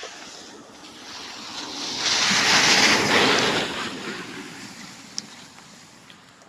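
A vehicle passing by: a rushing tyre and road noise that swells to a peak about two to three seconds in, then fades away.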